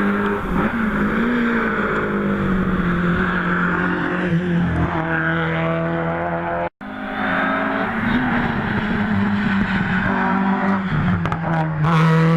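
Rally car engine running hard at a fairly steady, high pitch that wavers slightly. It cuts off abruptly a little past halfway, then resumes with a similar sound.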